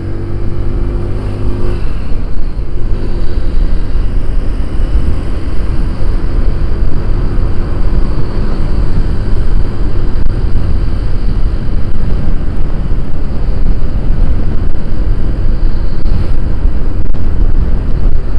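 Wind rushing and rumbling on the microphone of a Honda automatic scooter riding at road speed, with the scooter's engine underneath. It grows louder over the first two seconds as the scooter gathers speed, then holds steady.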